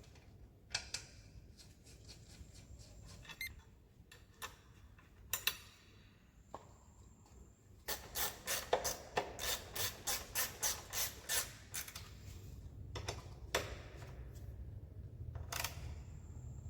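Metal tools and parts being handled on a motorcycle's rear wheel and chain: scattered clicks and rubbing, then a run of about a dozen sharp clicks roughly three a second, about halfway through.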